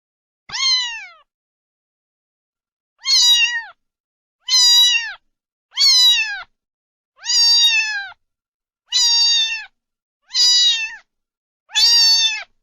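A cat meowing repeatedly: eight meows, each under a second with the pitch dropping at the end, one near the start and then seven more about every second and a half.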